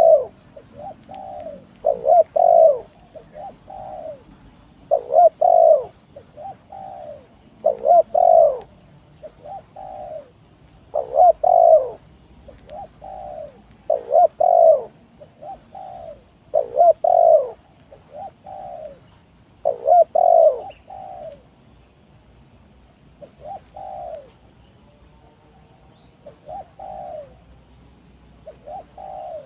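Spotted dove (tekukur) cooing persistently: a phrase of several low, rounded coos repeated about every three seconds, softer in the last third.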